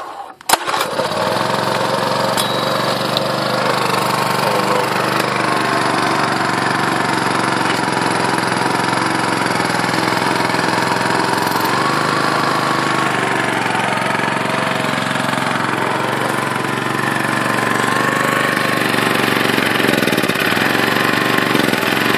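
Honda EM650 portable generator's small engine catching about a second in and then running fast and steady, its pitch wavering slightly now and then. It runs wide open because its governor is seized.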